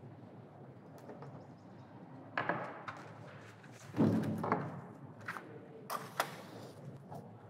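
Hands working at a wooden table as an envelope is sealed with sealing wax: a few soft knocks and taps, the loudest a dull thump about four seconds in and sharper clicks around six seconds, over faint room noise.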